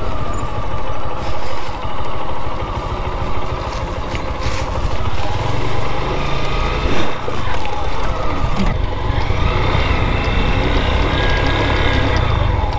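Motorcycle engine running on the move, with wind rushing over the microphone; the engine note drops about seven seconds in and climbs again a couple of seconds later.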